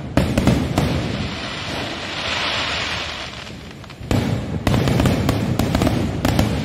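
Diwali aerial fireworks going off close by: a rapid volley of bangs and crackles, easing into a steadier crackling hiss for about two seconds, then a dense run of bangs again from about four seconds in.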